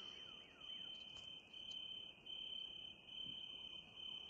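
Crickets trilling steadily at night: a faint, high-pitched, continuous chirring that swells and dips slightly.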